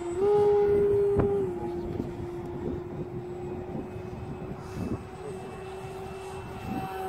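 E-flite Maule RC plane's electric motor and propeller whining in flight. The steady tone rises in pitch and gets louder shortly after the start for just over a second, then settles lower and steady.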